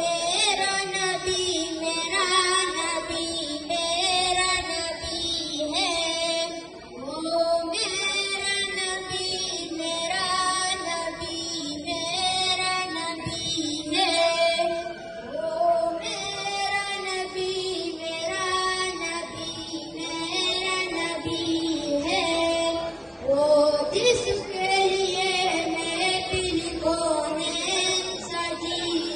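A boy singing a naat, an Urdu devotional poem in praise of the Prophet, into a microphone: one melodic voice in long held phrases with short breaks between them.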